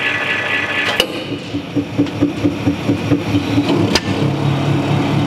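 200-ton hydraulic press's pump whining under load as the ram bears down on a titanium bolt, cut short about a second in by a sharp crack as the bolt gives way. The press then runs on with an even pulsing of about five beats a second, and there is a second sharp crack near four seconds.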